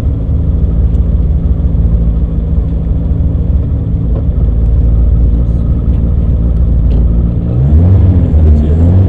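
Citroën AX rally car's four-cylinder engine idling steadily, heard from inside the cabin, then revved up and down in blips from about seven and a half seconds in.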